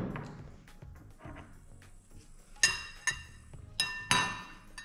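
Metal fork clinking against a ceramic bowl of watermelon chunks, four short ringing clinks in the second half, over background music.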